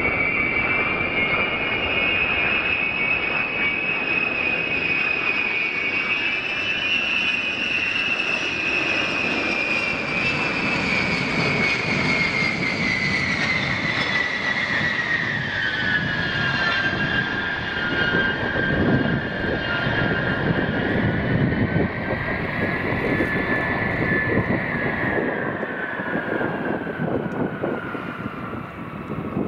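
Boeing B-52H Stratofortress on landing approach, its eight Pratt & Whitney TF33 turbofan engines giving a loud whine over a steady rumble. The whine drops in pitch in the second half as the bomber passes low overhead and draws away toward the runway.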